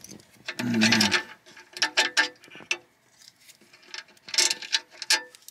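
Wires and plastic-insulated crimp terminals being handled and worked off a bolt on a metal plate: a scatter of short clicks, rattles and rustles. A short vocal sound comes about a second in.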